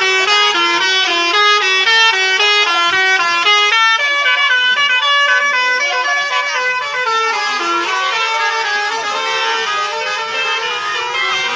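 A bus's 'telolet' musical air horn playing a quick tune of short stepped notes, several a second, without a pause.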